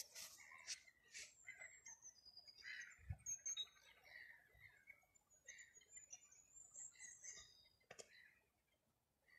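Faint bird chirps and twitters: many short, high notes scattered through, with a single sharp click about eight seconds in.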